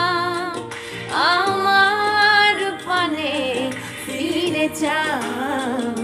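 A woman singing a Bengali song over musical backing, with long held notes that glide and waver in a vibrato.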